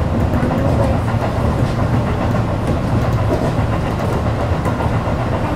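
Tobu Railway electric commuter train running along the line, heard from the front cab: a steady rolling rumble with a low hum.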